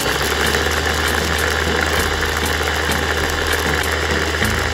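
Electric blender running steadily, blending the sauce ingredients in its plastic jar. It is a loud motor hum with a dense whirr that starts abruptly.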